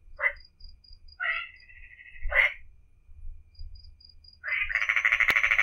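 Frogs calling at night: a few short croaks, then about four and a half seconds in a louder, fast pulsing trill that keeps going. A faint, high, repeated chirp sounds in between the croaks.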